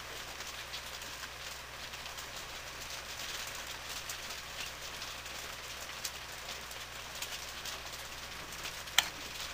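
Steady rain falling, heard as an even hiss with many faint ticks. There is light handling of the fan's motor parts, with one sharp click near the end.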